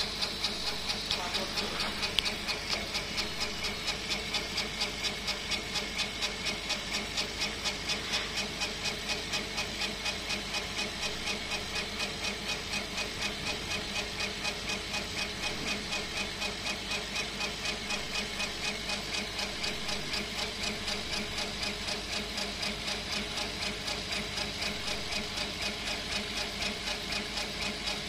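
CO2 laser engraving machine running, its laser head driven back and forth over the work. An even pulsing a few times a second over a steady hiss.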